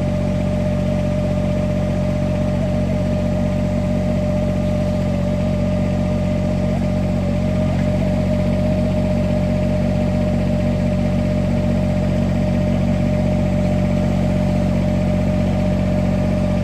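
Tractor engine idling steadily, with a steady higher-pitched hum over the low running note; it runs even after the cab's dashboard was smashed by a falling tree.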